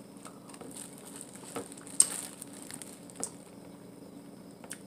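Eating a seafood boil by hand: scattered wet mouth clicks and lip smacks while chewing, with one sharper smack about two seconds in.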